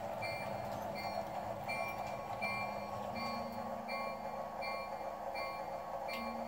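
S-gauge model train rolling along the track with a steady running rumble, while the sound system of the Flyer Chief Baldwin diesel switcher rings its bell over and over, about once every 0.7 s. Its diesel engine hum steps up in pitch about three seconds in.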